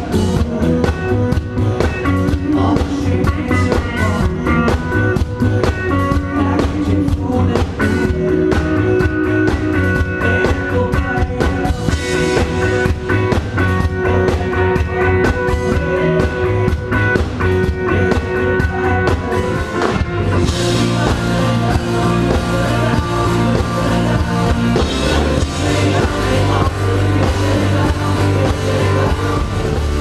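Live rock band playing: drum kit, guitars and bass in a steady groove, with some singing. The sound gets fuller and brighter about two-thirds of the way through.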